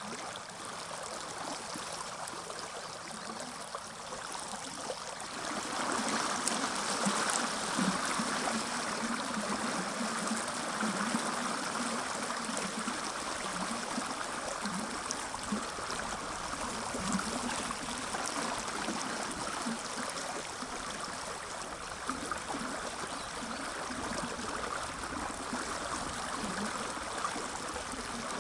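Fast-flowing mountain river rushing and gurgling over stones in a strong current; the rush grows louder about five seconds in.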